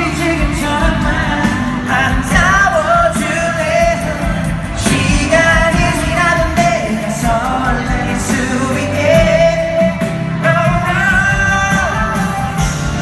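Pop group singing live over loud amplified music, the vocal line holding a few long notes.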